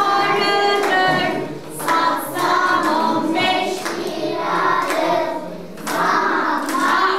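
A class of young children singing a song together in chorus, with hands clapping along.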